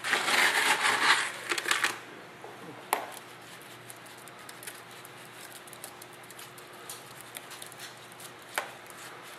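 Gloved hand scooping wet cement-and-aggregate rock mix, with a loud gritty scraping for about two seconds, then a sharp click and scattered light ticks as the mix is crumbled over a pile of rock salt.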